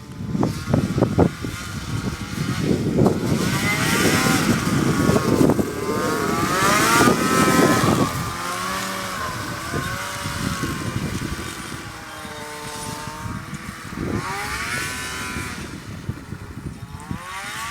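Arctic Cat M5 snowmobile's two-stroke engine revving up and down as it is ridden, its pitch rising and falling repeatedly. It is loudest in the first half, then quieter and farther off, with further surges of revs later on.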